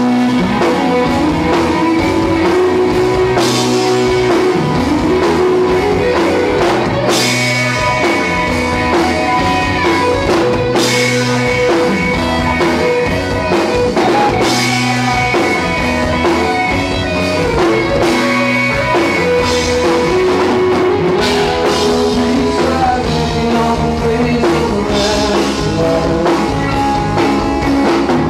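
Live rock band playing: electric guitars, electric bass and drum kit, with a cymbal crash about every three and a half seconds.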